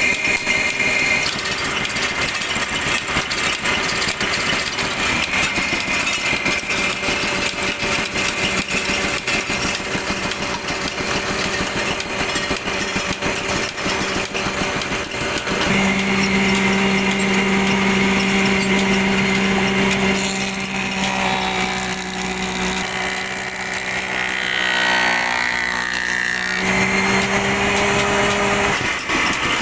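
A power tool motor running steadily. It gets louder about halfway through, and its pitch sweeps down and back up several times near the end.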